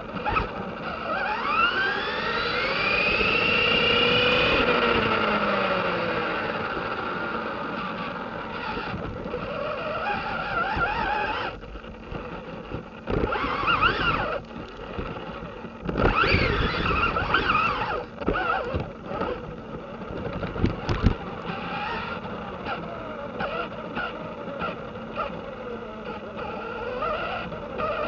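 Losi Rock Rey RC rock racer driving on a 2S battery. Its brushless electric motor and geartrain whine up and down in pitch with the throttle, and sharp knocks and rattles come from the chassis over rough ground, loudest around the middle.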